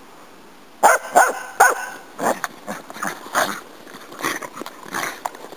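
Dogs barking and yipping in play. Three loud barks come close together about a second in, then a string of shorter, quieter yips.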